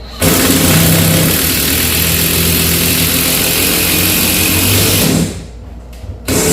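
DeWalt 20-volt XR half-inch cordless impact driving a bolt into a wooden 4x4, hammering under load for about five seconds. It gives a brief final burst near the end.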